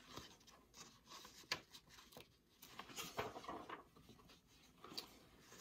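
Faint rustling and a few light clicks of a picture book being handled and its page turned.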